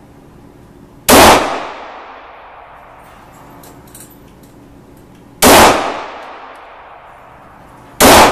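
Three loud shots from a Glock 22 .40-calibre semi-automatic pistol, fired slowly a few seconds apart, the last near the end. Each shot is followed by a short reverberating tail from the indoor range.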